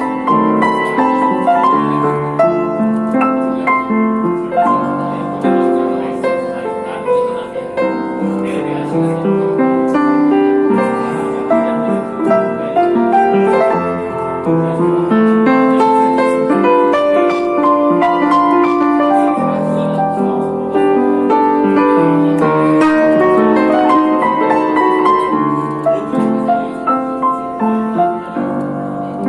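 Piano playing, a melody over chords.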